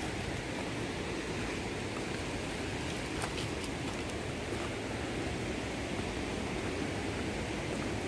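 Steady outdoor rushing noise, with a few faint footsteps on a stony trail about three seconds in.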